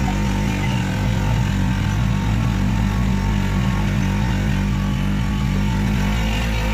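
Backwater tour boat's motor running steadily, an even engine drone.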